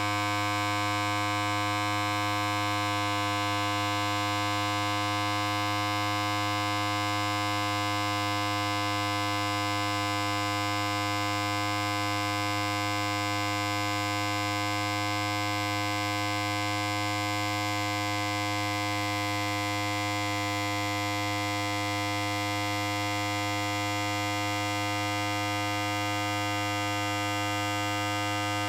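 Electric hair clipper running continuously, a steady, even low buzz that holds the same pitch throughout.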